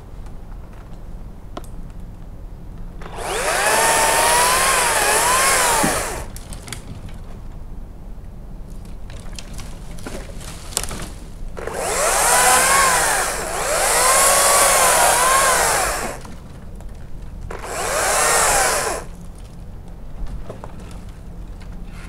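Makita top-handle battery chainsaw cutting persimmon wood in four bursts of a few seconds each, two of them nearly back to back; its electric motor's whine wavers up and down in pitch as the chain works through the wood.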